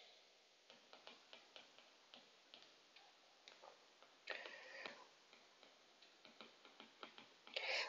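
Faint, irregular ticks of a stylus tapping and clicking on a tablet screen during handwriting, with a brief soft rustle about four seconds in.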